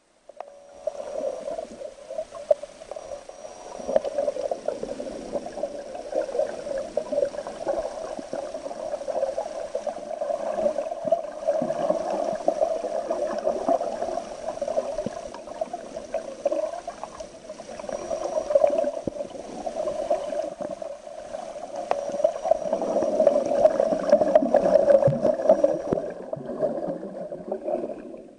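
Muffled underwater water noise picked up by a submerged camera: a steady, wavering wash that swells and fades and grows louder for a few seconds near the end.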